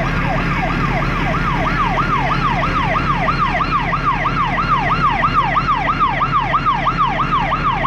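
An emergency vehicle's electronic siren in fast yelp mode, its pitch sweeping up and down about three to four times a second and quickening a little in the first second or two. A steady low hum lies underneath.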